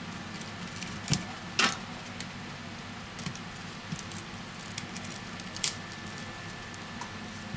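Small plastic clicks and scrapes as a smartphone's display module, its adhesive softened by heating, is pried off the frame with a plastic pick and handled, with three sharper clicks, about a second in, a second and a half in, and near the end. A steady low hum runs underneath.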